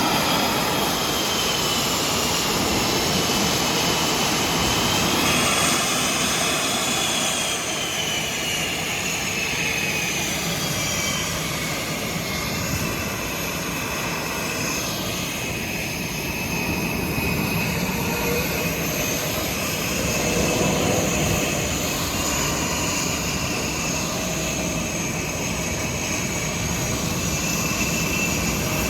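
Jet engines of Blue Angels F/A-18 Super Hornets, a steady loud roar with a high turbine whine that slowly rises and falls in pitch.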